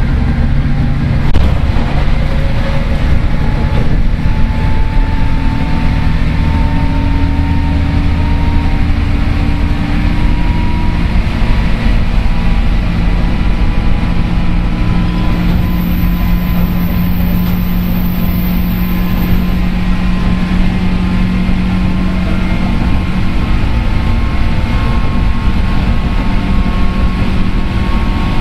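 JR 103 series electric train running, heard from inside a motor car: the traction motors and gears whine over the steady rumble of the wheels on the rails, the whine slowly rising in pitch.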